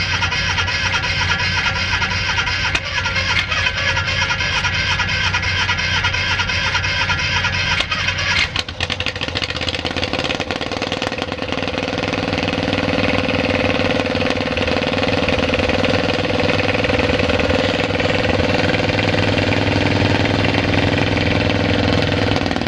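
Cold start of a Caterpillar D8H bulldozer with its gasoline pony (starting) motor, which runs loudly at first. About eight and a half seconds in, the sound changes abruptly to a lower, heavier steady engine note that grows louder over the next several seconds and then holds.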